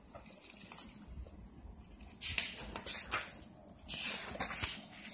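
Paper rustling as the pages of a printed book are flipped, in several short rustles.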